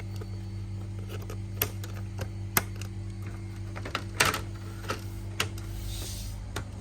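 Air conditioner running with a steady electrical hum, overlaid by irregular sharp clicks and ticks, loudest in a short cluster about four seconds in.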